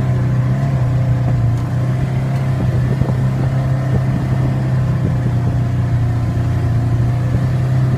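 ATV engine running steadily, its low hum holding a level pitch, with rough rumbling noise underneath.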